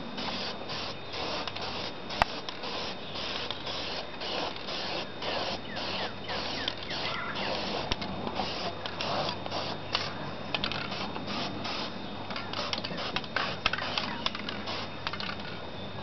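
Aerosol spray-paint can being shaken, its mixing ball rattling in a steady rhythm of about two to three clacks a second, turning more irregular near the end.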